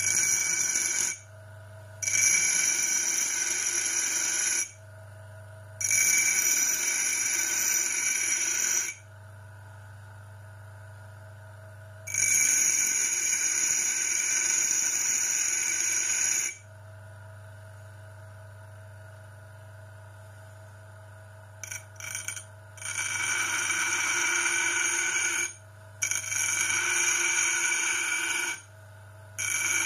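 Homemade bench grinder's motor humming steadily, with repeated bursts of a few seconds each of a high ringing whine as metal is ground against the wheel.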